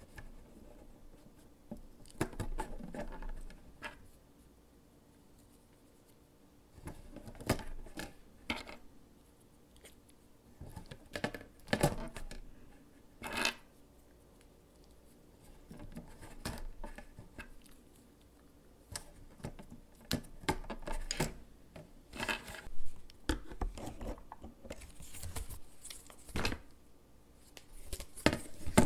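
Mechanical keyboard parts being handled, with scattered clicks, scrapes and light plastic-and-metal clatter coming in irregular bursts separated by short pauses.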